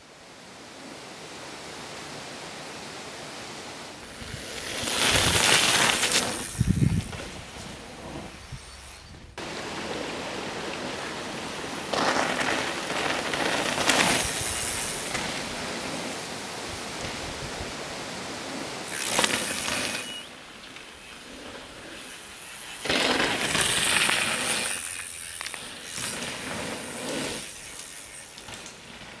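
Downhill mountain bike ridden over a loose gravel trail: tyres crunching and skidding on gravel with the rattle of the bike, swelling in about four loud passes and fading between them over a steady hiss.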